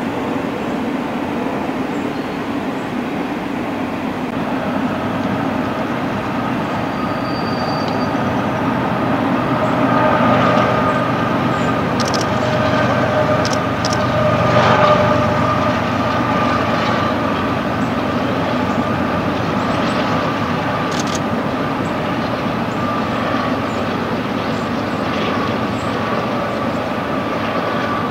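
Double-stack intermodal freight train rolling across a steel trestle viaduct: a steady rumble of the cars with a high ringing tone running through it. It swells a little around the middle, where a few sharp clicks come.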